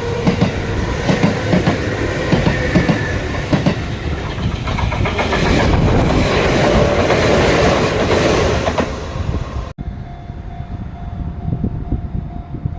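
Sanyo Electric Railway train passing close by at a level crossing, its wheels clacking over the rail joints and growing louder in the middle. The sound cuts off abruptly about ten seconds in, and a steady ringing tone over continued train noise follows.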